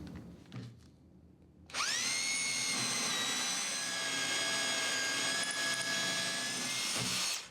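Makita BHR202 18V cordless SDS+ rotary hammer in rotary-only mode, driving a hole saw into a timber stud. Its motor starts about two seconds in with a rising whine, runs steadily, and stops shortly before the end.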